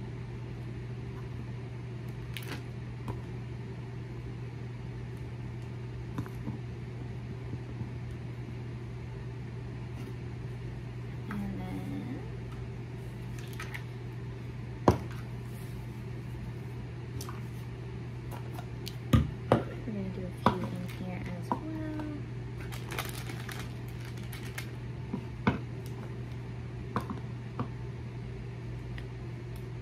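Candied strawberries with a hard sugar coating and plastic snack-container pieces being handled: scattered clicks and knocks, the loudest a few about 15 and 19 to 21 seconds in, over a steady low appliance hum.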